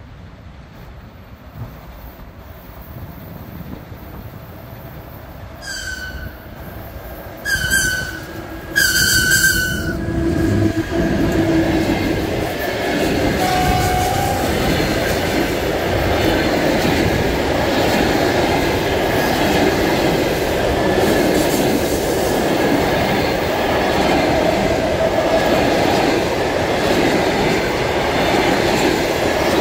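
EP1M electric locomotive sounding three short, high-pitched horn blasts as it approaches, the last a little longer. After that the locomotive and its passenger coaches roll past close by: a loud, steady rumble of wheels on the rails.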